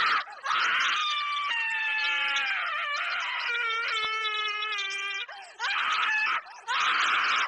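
A person screaming: a long drawn-out wail through the middle that sags slightly in pitch, with short hoarse screams before and after it, broken by brief gaps.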